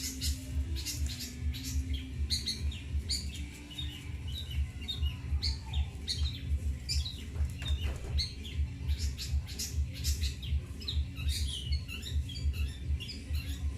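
Long-tailed shrike (cendet) singing a busy run of short, high chirps and squeaky notes, over a steady low throbbing pulse.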